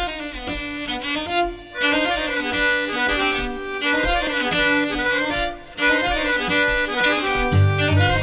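Instrumental introduction to a Bosnian sevdalinka played on steel-string acoustic guitar and cello: a sustained melody with vibrato over the guitar, with low cello notes coming in near the end.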